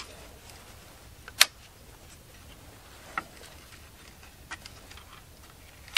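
A few isolated, sharp clicks of small metal chain-brake parts on a chainsaw's brake assembly being pushed and fitted by hand, the loudest about a second and a half in.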